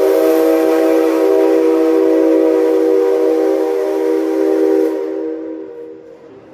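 Whistle of the C57 135 steam locomotive giving one long blast, a steady chord of several tones over a hiss, which dies away about five seconds in.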